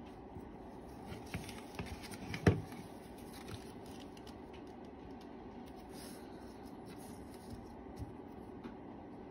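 Pencil scratching and tapping as it marks a lure blank held in the hand, with one sharp knock about two and a half seconds in and a lighter one near the end, over a steady low hum.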